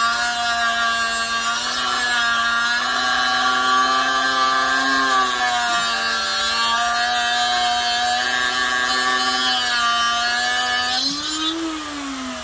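Harbor Freight Chicago Electric 3-inch electric cut-off tool, with a 3-amp, 20,000 RPM motor, cutting through a metal rod with a thin 60-grit Warrior abrasive wheel: a steady high whine with the grinding of the wheel, its pitch wavering slightly as it is pressed into the cut. About eleven seconds in it comes free of the cut, the whine rising briefly and then falling as the motor winds down.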